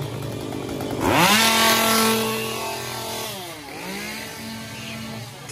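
Gas chainsaw idling, then revved hard about a second in and held at high speed for about two seconds. It drops back and is revved up again, falling back to idle near the end.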